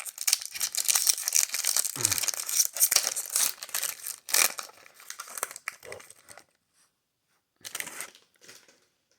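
A Yu-Gi-Oh booster pack's foil wrapper crinkling and tearing open for about six seconds, then a couple of brief rustles near the end.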